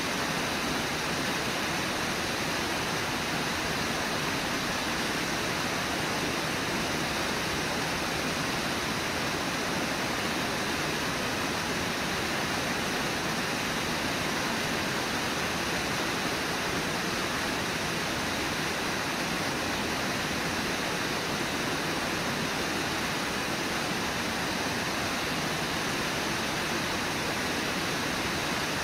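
A waterfall rushing steadily: an even, unbroken wash of falling water with nothing else standing out.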